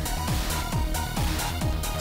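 Dark electro / EBM track with a fast, steady kick-drum beat, about four a second, under sustained synth lines.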